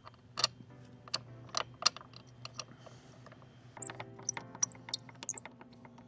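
A quick, uneven series of light clicks and taps as an LED turn signal housing and its mounting bolt are handled and fitted into a motorcycle's front fairing. The clicks come closer together in the second half.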